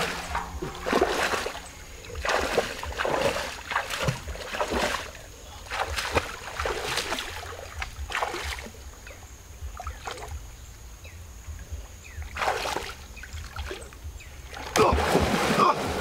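River water splashing and sloshing as a person wades through a shallow river, in irregular strokes. The splashing turns heavy and continuous near the end.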